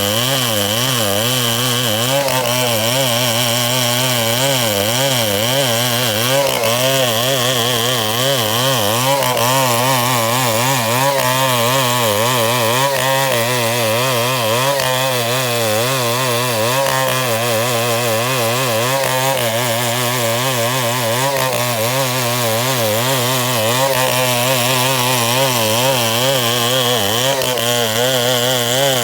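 Two-stroke chainsaw running steadily at high speed, its pitch wavering slightly up and down throughout.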